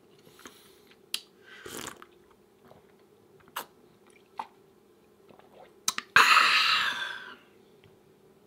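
Close-miked chewing of whole-wheat vegan flapjacks, with wet mouth clicks every second or so. About six seconds in there is a loud, airy rush lasting about a second.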